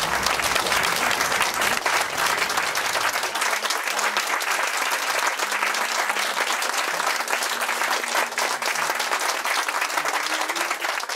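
Theatre audience applauding: dense, steady clapping from a room full of people, kept up without a break.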